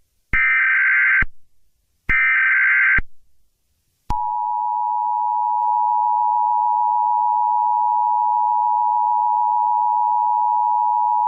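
Emergency Alert System tones: two bursts of the warbling digital SAME header data, each just under a second long. Then, about four seconds in, the steady two-tone EAS attention signal (853 and 960 Hz sounding together) starts and holds.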